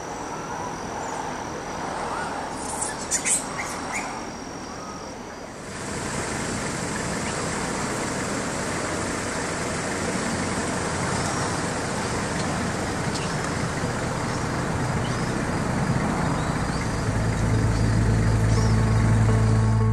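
Steady outdoor background noise of distant road traffic, with a few sharp clicks about three seconds in. The noise gets denser and louder at a cut about six seconds in, and music with low held notes comes in near the end.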